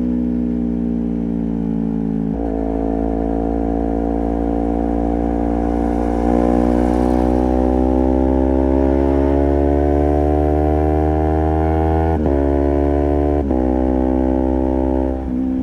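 Honda CBR250RR's parallel-twin engine running through a Project 79 slip-on exhaust under way, its pitch climbing slowly as the bike gathers speed. The pitch breaks sharply at gear changes about two seconds in and twice near the end.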